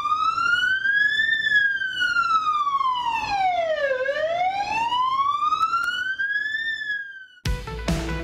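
Ambulance siren wailing, its pitch rising and falling slowly, two long climbs and a dip between them. It cuts off near the end, and music starts.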